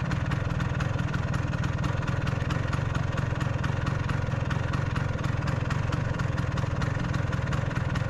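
Vespa PX scooter's single-cylinder two-stroke engine idling steadily.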